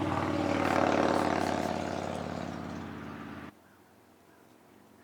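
An engine drone, steady in pitch, swelling about a second in and easing off, then cut off abruptly about three and a half seconds in.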